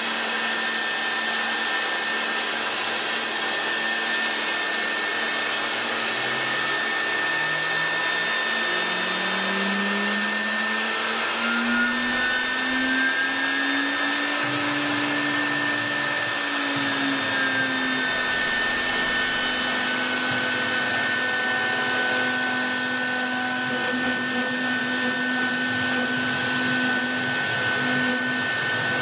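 HSD electric spindle of a CNC wood router running with a steady whine over a constant rushing noise. About a quarter of the way in, the whine climbs in pitch, then levels off and holds. A run of faint high ticks comes near the end.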